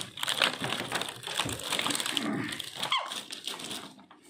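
Small plastic toy pieces and their moulded plastic packaging tray clicking and rustling as they are handled, with a short falling squeal, most likely from a small child, about three seconds in.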